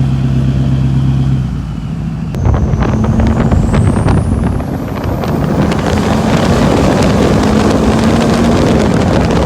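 Duramax LML 6.6-litre turbo-diesel V8 pickup, with an upgraded turbo, running at a steady note, then revving hard about two and a half seconds in with a whistle rising in pitch, during a burnout.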